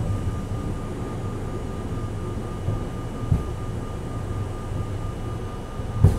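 R32 subway car running along the track, heard from inside the car: a steady low rumble with a faint steady high tone, and two sharp knocks about three seconds apart, the second the loudest.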